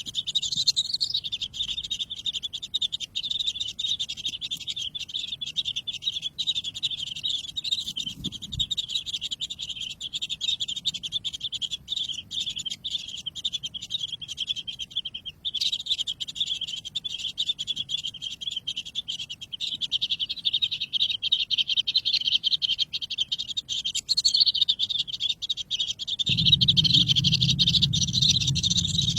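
Baby birds chirping in a rapid, continuous high-pitched chatter. A low rumble joins in near the end.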